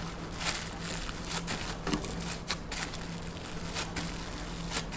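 A cling-film-wrapped bamboo sushi rolling mat squeezed and pressed by hand around a sushi roll to shape it: irregular soft crinkling of the plastic and light clicks of the bamboo slats, several times a second.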